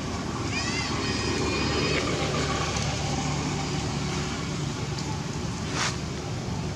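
A steady low rumble of outdoor background noise, like distant road traffic. From about half a second to two seconds in come several short, high, squeaky calls, and near the end there is a single sharp click.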